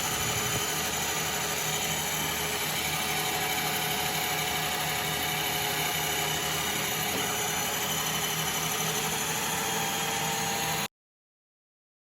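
Remote control car running on a moving treadmill: the steady whine of electric motors over belt and tyre noise. It cuts off suddenly near the end.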